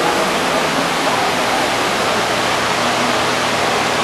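Large barn fans running with a steady rushing noise.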